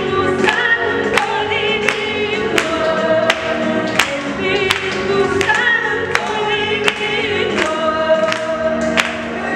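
Two women singing a gospel worship song to an electronic keyboard accompaniment, over a steady percussion beat of about three strokes every two seconds.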